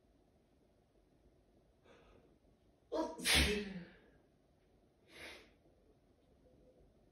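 One loud sneeze about three seconds in from a person with a head cold, with a faint in-breath just before it and a shorter breath about two seconds after.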